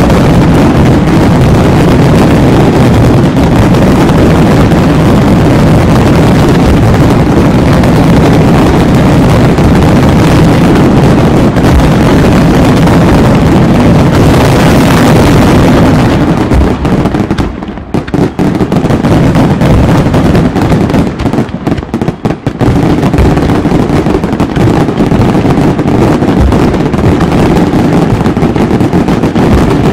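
Fireworks display going off in a dense, loud, continuous barrage of bursts. It thins out briefly twice past the middle.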